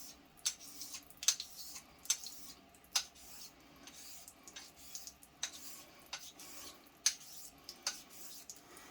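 Straight razor being honed on a wet whetstone: a run of strokes, each a soft scrape of steel across the stone ending in a light click as the blade is flipped over on its spine, about one a second.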